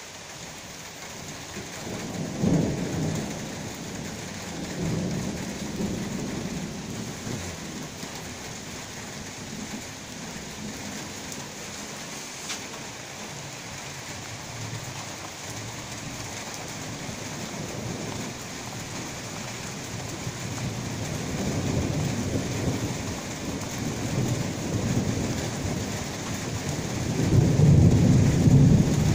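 Heavy rain pattering steadily during a thunderstorm, with rolling thunder. Short rumbles come a few seconds in, and a long, louder rumble builds and peaks near the end.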